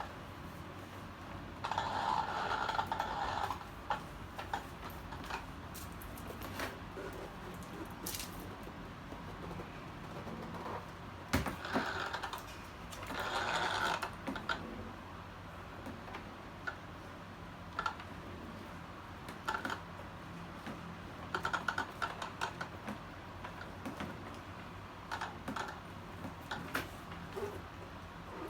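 Handling noises from unboxing an RC truck: scattered small clicks and taps, with a few short bursts of rustling from packaging material.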